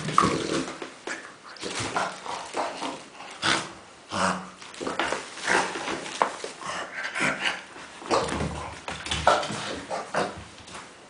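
French bulldog making a run of short, irregular pig-like grunts and snorts while playing with tennis balls.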